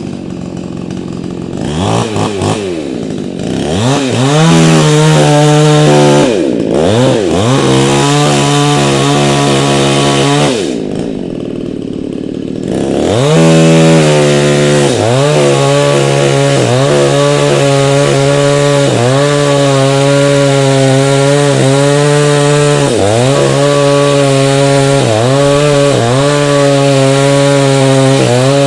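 Two-stroke chainsaw idling, then revved up and down several times and briefly let back to idle. It is then held at high revs cutting into the wood, the engine pitch dipping briefly about every two seconds as the chain bites under load.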